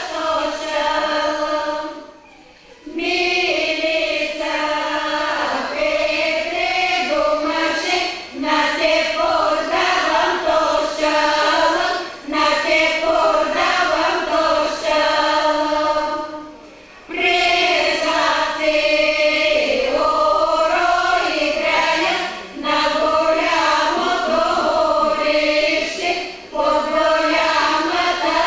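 A group of voices singing a Bulgarian folk song a cappella, in long sustained phrases with brief breaks between them.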